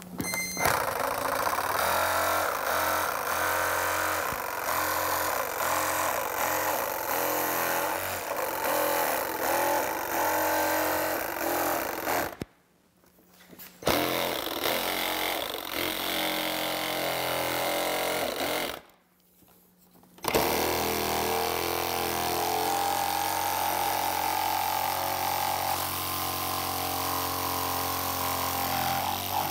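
Milwaukee one-handed reciprocating saw with a jigsaw blade cutting through a plastic motorcycle saddlebag lid along a template. It runs in three long stretches, stopping twice for about a second and a half.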